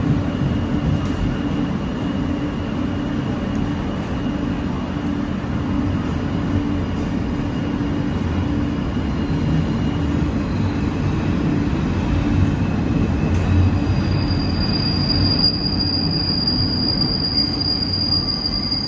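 Alstom R160A subway car heard from inside the car while running: a steady low rumble of wheels and running gear on the track. A faint high tone sounds through the first half, and in the last few seconds a louder high-pitched squeal of several tones comes in, typical of steel wheels squealing on a curve.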